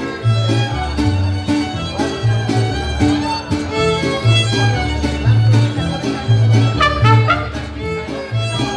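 Live mariachi band playing: violins carry the melody over the guitarrón's deep plucked bass notes and an even strummed rhythm.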